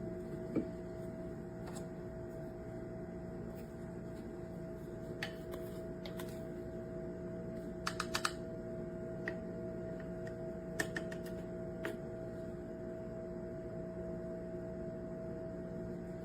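A steady low hum with a few faint fixed tones, and scattered light clicks and taps: one about half a second in, a quick run of four about eight seconds in, and a few more over the next four seconds.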